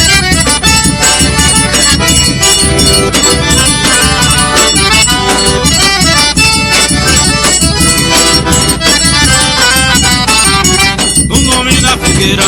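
Forró band playing an instrumental passage led by accordion, with a shaker and a steady driving beat.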